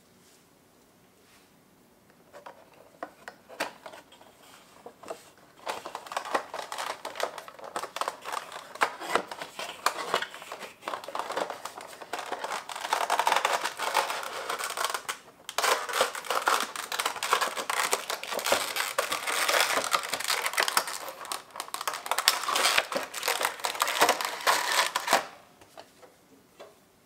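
Crinkling and rustling of a Funko Pop box's clear plastic tray and cardboard being handled, as the vinyl figure in its tray is worked out of the box. It starts about two seconds in, pauses briefly about halfway through, and stops a couple of seconds before the end.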